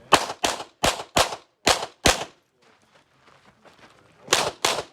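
Glock 34 9mm competition pistol firing in quick double taps: three pairs in the first two seconds, then a pause of about two seconds before another pair.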